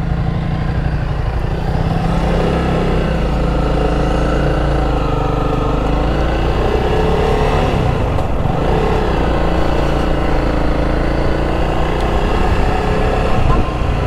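Honda CRF300's single-cylinder engine pulling away and accelerating. Its pitch climbs and drops back with each gear change.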